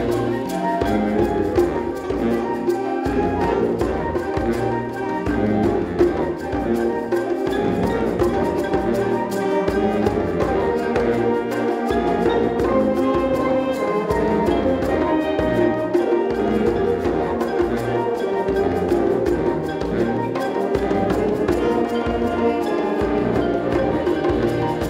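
High school band playing, with brass over a steady beat of low drum strokes.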